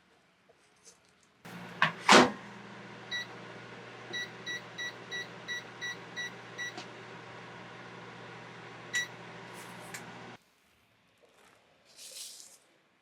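Microwave oven running with a steady hum while heating uirō batter, with a loud clunk early on, a quick string of about eight keypad beeps, and a click shortly before the hum cuts off abruptly. A faint rustle follows near the end.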